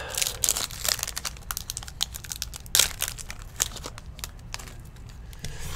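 A trading-card pack's wrapper crinkling and crackling as it is torn open and the cards are pulled out, in dense irregular crackles that thin out over the last couple of seconds.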